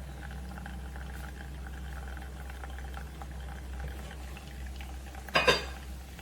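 Small 3.5-bar steam espresso machine running, with a steady hum and water boiling and gurgling inside it. There is a short, loud burst of hiss about five seconds in.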